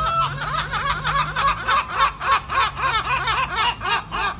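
Someone laughing hard and high-pitched: a fast, even run of short 'ha' syllables, about five or six a second.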